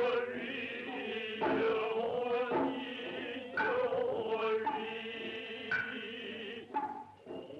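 Noh chanting (utai) by male voices in unison, on long held notes, with a few sharp strikes between the phrases. The sound is the narrow, dull sound of a 1949 film soundtrack.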